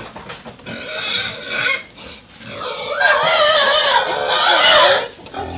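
Pigs squealing while crowded together in a livestock trailer. Rougher sounds come first, then long, loud, wavering squeals from about halfway through until just before the end, broken once by a short pause.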